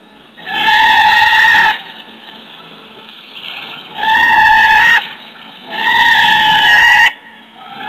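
Giraffe calls: three loud, high-pitched calls about a second long each, held at a steady pitch, with a fainter short call between the first and second.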